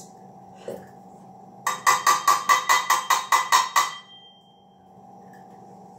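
A quick run of about a dozen loud knocks, roughly five a second, each with a ringing tone; they stop abruptly after about two seconds.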